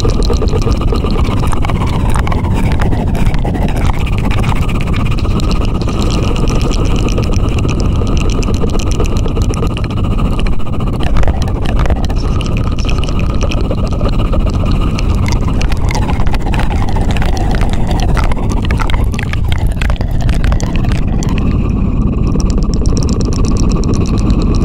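ASMR 'helicopter' trigger: a loud, steady, low rumble with a fast flutter in it, like a helicopter's rotor, made close up for sleep and relaxation.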